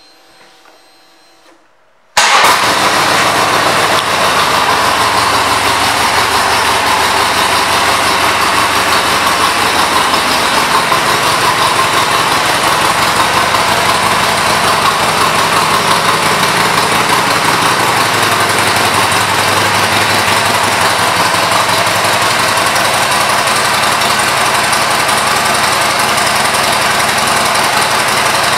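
Harley-Davidson Sportster Seventy-Two's air-cooled 1200 cc Evolution V-twin starts suddenly about two seconds in, then idles steadily and loudly.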